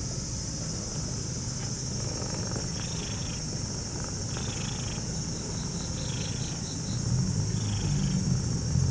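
Domestic tabby cat purring steadily while being stroked, a sign of contentment; the purr grows louder near the end.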